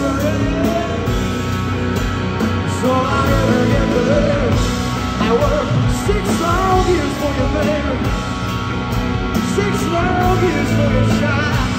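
Live rock band playing loud: electric guitar and drums under a male lead voice singing into the microphone.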